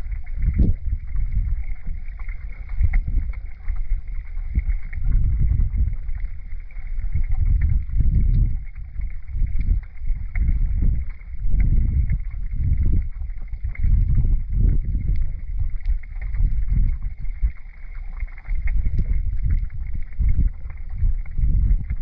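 Muffled underwater sound of river current flowing over a pebble bed: a deep, uneven rumble that swells and eases every second or so, with faint scattered clicks.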